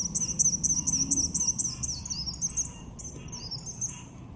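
Songbird singing a rapid run of high, repeated chirps, about four a second, then switching to a different phrase of rising notes about two seconds in.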